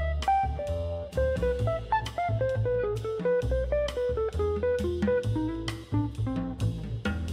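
Upbeat instrumental background music: quick plucked guitar notes over bass and a drum kit.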